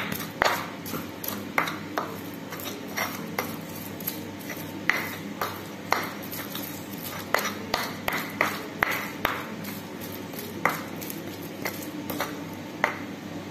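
Stone pestle (ulekan) grinding spice paste in a stone mortar (cobek), with irregular scraping strokes and sharp clicks of stone on stone, a few of them ringing.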